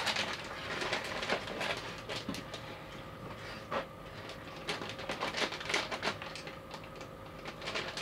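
Clear plastic bags of small figure parts crinkling and rustling as they are handled, with irregular light crackles.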